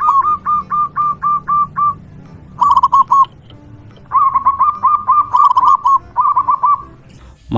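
Zebra dove (perkutut) singing: quick runs of short, hooked cooing notes, about four or five a second, in three bursts with brief pauses between.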